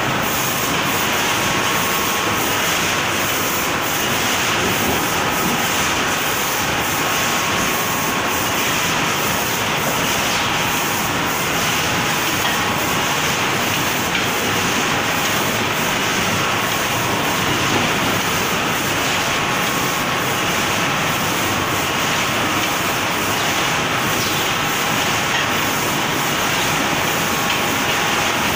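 Steady mechanical running noise of a robotic case packing line for bagged snacks: belt conveyors and the pick-and-place robot operating continuously, an even level with no pauses.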